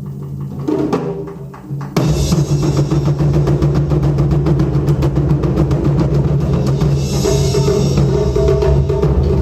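Taiko drum ensemble playing. About two seconds in, the drumming jumps from a quieter passage to loud, fast, densely packed strokes.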